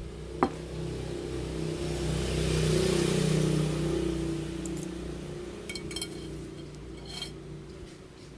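A motor vehicle passing by: its engine hum swells to a peak about three seconds in, then fades away. A sharp click sounds near the start, and a few light clinks come later on.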